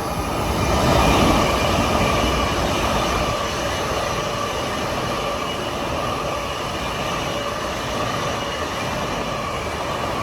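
Long Island Rail Road train passing close by: a steady rush of wheels on rail with a thin high whine, loudest about a second in.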